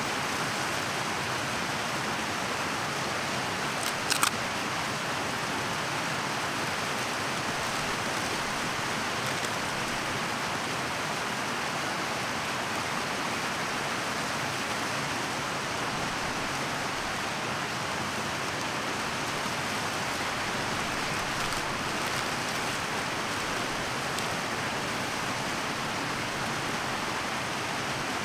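Mountain stream rushing steadily. A brief sharp clatter sounds about four seconds in.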